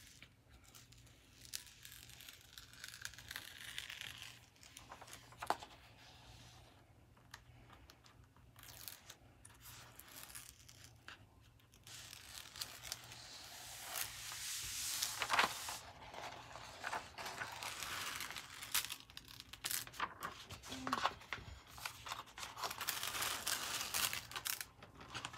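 Protective release paper being peeled off the glue-coated diamond painting canvas: a crackling, tearing peel with paper rustling, loudest around the middle.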